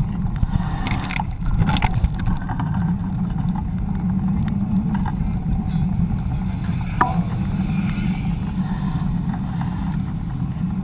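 Steady low rumble of wind over a GoPro action camera's microphone and tyre noise from a mountain bike rolling on pavement. A few sharp knocks come in the first two seconds and one more about seven seconds in.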